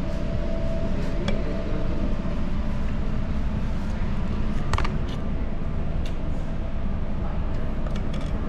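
Steady low rumble of dining-room background noise, with a few sharp light clicks of chopsticks and tableware against the dishes and metal steamer.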